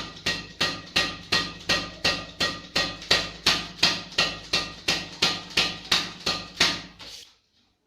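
Badminton racket strung with Yonex BG66 at 27 lbs being struck on its string bed again and again in an even rhythm, about three sharp pings a second. The strikes stop about 7 seconds in.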